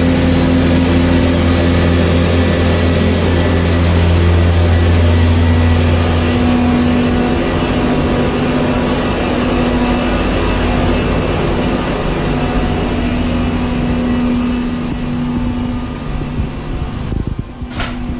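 Steady, loud machinery noise from a station plant room's water-treatment equipment, a low hum and a mid tone over a wide hiss. The low hum drops away about six seconds in, and the noise eases off near the end.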